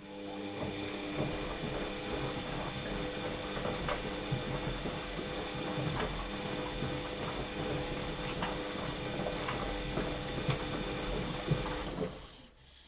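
Washing machine's drum motor running with a steady hum for about twelve seconds, with irregular knocks and clicks from the turning drum. It starts with a click and then stops.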